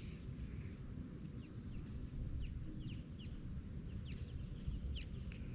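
Small birds chirping, many short high chirps that slide downward, scattered through the whole stretch, over a steady low rumble.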